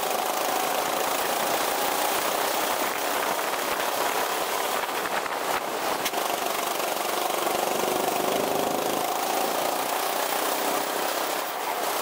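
200cc rental go-kart engine running on track, its pitch rising and falling as the throttle opens and closes through the corners.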